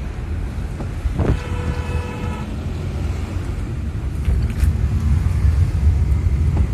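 Steady low rumble of a car's engine and tyres, heard from inside the cabin while driving. Just over a second in, a steady pitched tone sounds for about a second.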